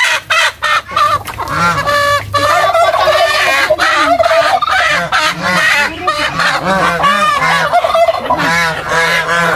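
A mixed poultry flock calling over one another: domestic geese honking again and again, with chickens squawking and clucking.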